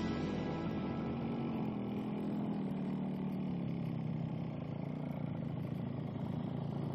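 Motorcycle engine running steadily, its note sinking slightly over the first few seconds.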